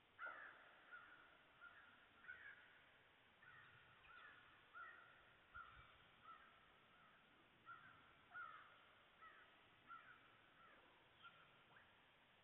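Crows cawing: a long run of short, repeated caws, faint over a quiet field.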